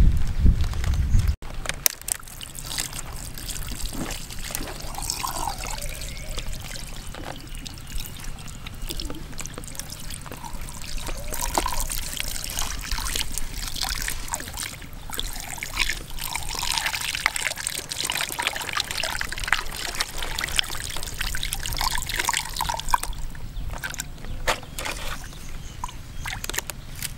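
Water pouring in a thin stream and trickling and splashing over a gutted stingray as it is rinsed and its innards are pulled out by hand. A brief loud low rumble at the very start cuts off suddenly.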